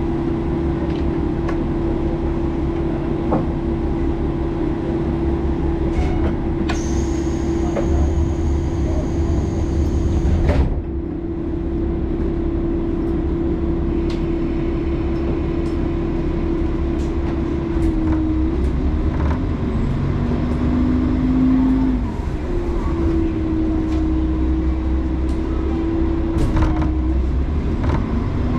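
JR Kyushu diesel railcar engine idling with a steady low hum, heard from inside the carriage, with scattered light clicks. A sharp hiss cuts in for about four seconds near the middle and stops abruptly. In the last third the engine note dips and then starts to climb as the train pulls away.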